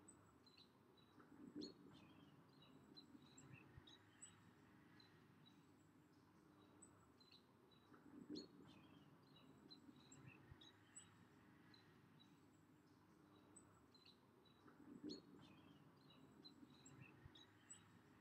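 Near silence: faint open-air background with scattered faint bird chirps, and a soft low swell that comes back about every seven seconds.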